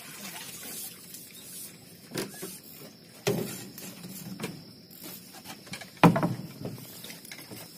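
A landing net with a tilapia in it is lifted out of the water, water splashing and dripping off it, then the net and its handle knock on the wooden deck several times, the loudest knock near the end.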